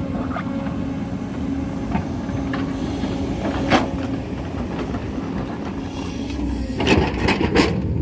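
JCB excavator's diesel engine running steadily under load while its bucket digs into rocky hillside soil. There is one sharp knock of stone a little before halfway, then several knocks and scrapes of rock close together near the end.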